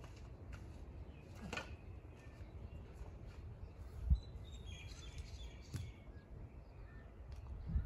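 Quiet outdoor background with a steady low rumble and faint bird chirps, broken by a few light knocks of wood being handled, the loudest a dull thump about four seconds in.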